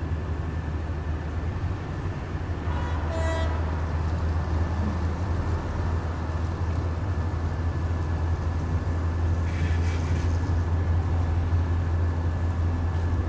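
Steady low drone of a car's engine and road noise, heard from inside the cabin while driving in city traffic. A brief higher-pitched sound, such as a horn from other traffic, comes about three seconds in, and a fainter one near ten seconds.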